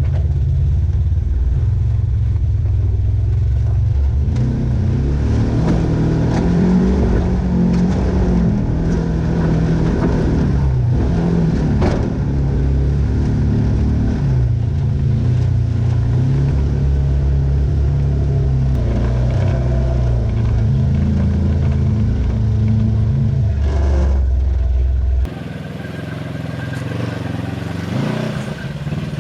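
Off-road vehicle engine running and revving, its pitch rising and falling. Near the end the sound cuts suddenly to a quieter engine.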